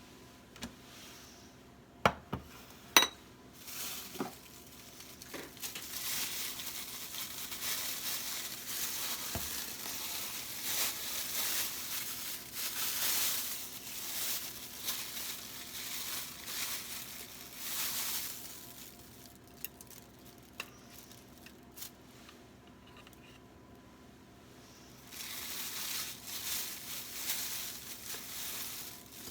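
Food sizzling in a frying pan, in two long spells with a pause between, after two sharp clinks of kitchenware near the start.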